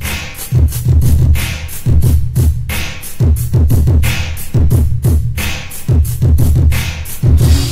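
Bass-boosted 1980s old-school hip hop track: a drum-machine beat with heavy bass kicks, a clap about every second and a quarter, and quick hi-hat ticks in between.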